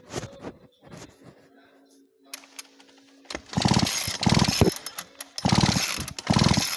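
Poulan P3816 chainsaw's recoil starter being pulled four times, in two quick pairs, each pull a short whirring rattle as the engine spins over without firing. The ignition switch is off, so the plug gives no spark.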